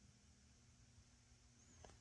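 Near silence: faint room tone with a low steady hum, and a faint click near the end.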